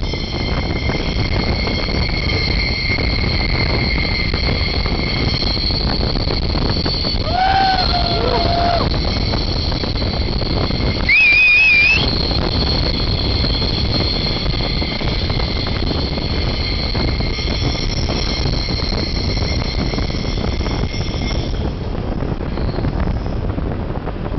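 Berlin S-Bahn train running, heard through a missing window: a steady rumble and rush of air, with a high steady squeal of wheels on the rails that fades out near the end. A short gliding shout comes about a third of the way in, and a brief loud wavering whistle about halfway through.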